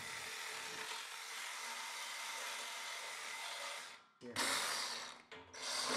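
Power saw with its blade inside a cast-iron radiator's connection, cutting through the seized brass ring that has bonded to the iron. It runs steadily, stops about four seconds in, then starts again in a short run and once more near the end.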